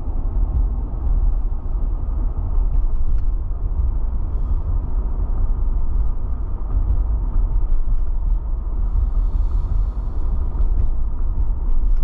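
Steady low road and engine rumble heard inside a moving vehicle's cabin, with small scattered creaks and rattles.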